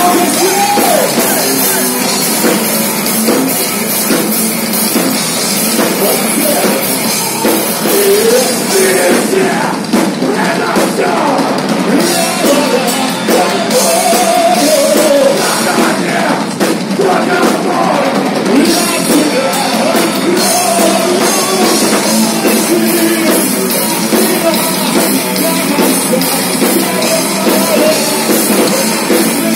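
Heavy metal band playing live: electric guitars and a drum kit, with a male singer over them. Loud and dense throughout.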